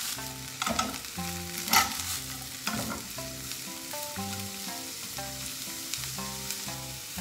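Thin slices of bitter melon sizzling in hot sesame oil in a frying pan as they are stir-fried and turned with chopsticks, with a few sharper clicks about a second apart. Soft background music with a gentle melody plays underneath.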